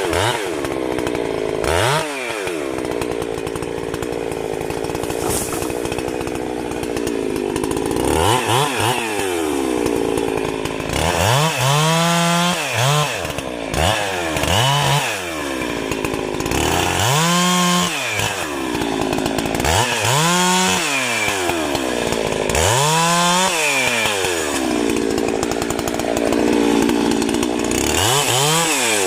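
Two-stroke chainsaw running at high revs under steady load for about eight seconds, then revved up and let back down again and again, roughly every three seconds, to the end.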